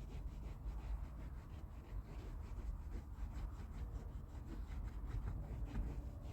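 Faint rhythmic scrubbing strokes on the nylon seat belt webbing, about three or four a second, over a low handling rumble.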